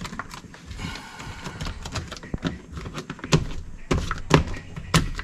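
Plastic door water shield being handled and pressed onto the inner door panel: a rustle of the sheet about a second in, and a run of taps and knocks as it is pressed down onto its adhesive.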